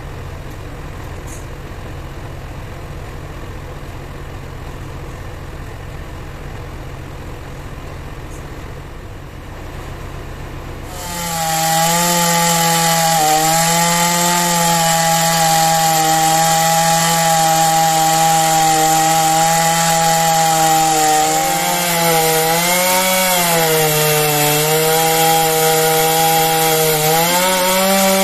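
A steady low hum for about the first eleven seconds. Then a Stihl MS 070 two-stroke chainsaw starts cutting into a block of wood at full throttle, and its engine note dips and recovers about three times as the chain bites under load.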